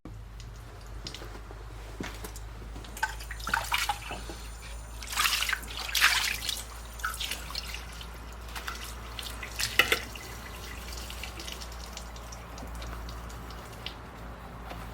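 Water dripping and splashing in short, irregular spatters for about ten seconds, then dying down.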